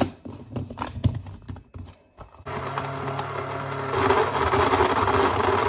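A few clicks and knocks as the lid goes onto a blender, then about two and a half seconds in the blender motor starts and runs steadily, growing louder a second or so later as it blends a thick frozen-fruit smoothie.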